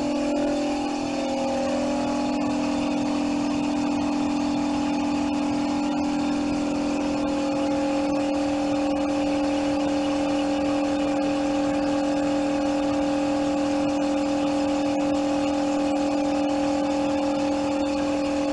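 A steady machine hum with a clear pitch, running evenly without change, typical of an electric motor or appliance running in the shop.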